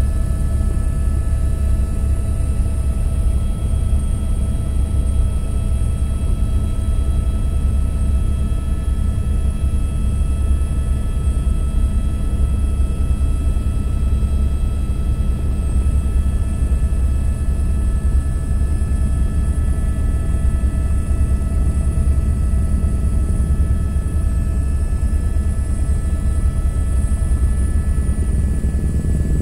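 Helicopter in steady forward flight: a loud, unchanging low rumble of rotor and engine, with a few constant high whining tones above it.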